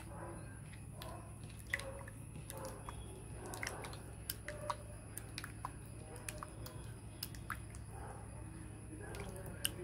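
A hand squeezing and kneading wet ground vellilam (Mussaenda) leaf paste in water in a glass bowl: soft, irregular wet squelching with scattered small clicks.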